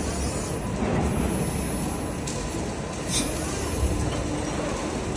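Steady mechanical rumble and hum of a CNC servo press brake running, with a short high hiss about three seconds in.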